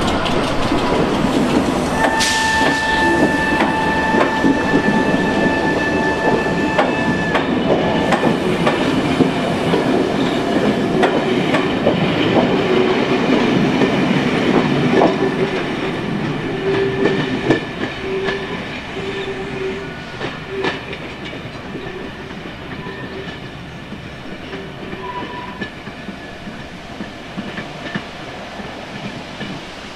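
Caledonian Sleeper coaches rolling out behind a diesel locomotive, wheels rumbling and clicking over the rail joints, with a steady high whine for several seconds near the start. The rumble stays loud for about fifteen seconds, then fades as the train draws away.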